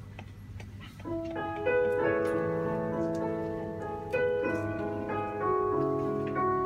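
Piano playing slow, sustained chords, coming in about a second in after a quiet start; the choir is not yet singing.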